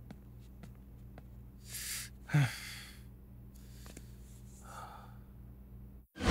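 A man breathing out heavily, with a short sound from the throat dropping in pitch a little past two seconds in, then another soft breath near the end, over a low steady hum and faint ticks.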